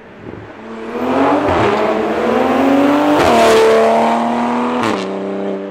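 Toyota Supra's BMW B58 turbocharged inline-six accelerating hard, its pitch climbing, falling sharply at an upshift about three seconds in, climbing again and dropping at a second upshift near the end.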